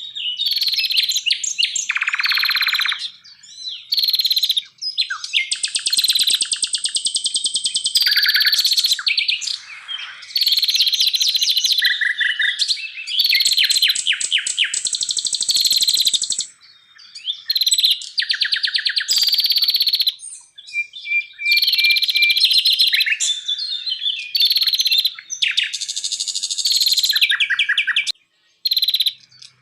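Songbird song: a fast, varied run of high whistled phrases and rapid trills, in bouts broken by short pauses.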